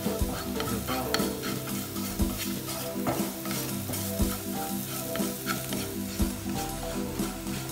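Minced lemongrass, chili and garlic sizzling in oil in a nonstick frying pan. Wooden chopsticks stir them with irregular scrapes and taps against the pan.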